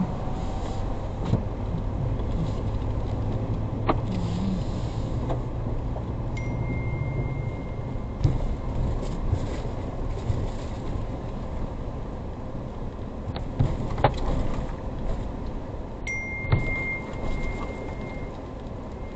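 Ford Ranger Raptor pickup driving slowly on a rough dirt road, heard from inside the cabin: a steady low engine and road rumble with occasional sharp knocks and rattles over bumps. A thin high tone sounds twice, each time for about two seconds.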